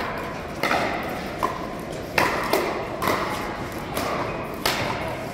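Pickleball paddles striking a hard plastic pickleball during a rally: a run of sharp pops, one every half second to a second, each with a short echo.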